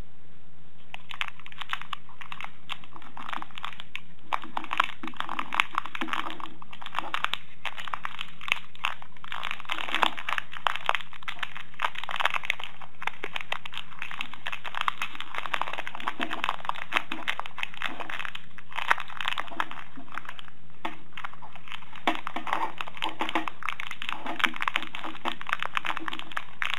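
Clear plastic earphone packaging crinkling and crackling as it is handled and opened, in many quick irregular crackles from about a second in, over a steady low hum.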